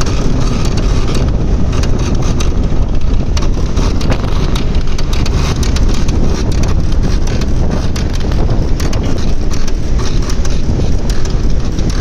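Storm-force wind, gusting near 90 knots, rumbling steadily and buffeting the microphone, with frequent small knocks and rattles.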